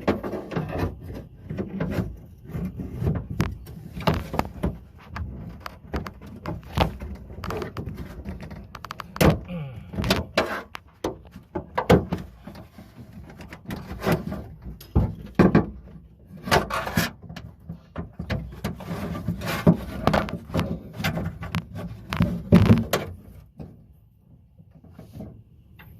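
Irregular clicks, knocks and rattles of hands working the latch linkage and old lock actuator inside a 2008 Chevy Tahoe's rear door panel, unhooking the latch. The clatter thins out near the end.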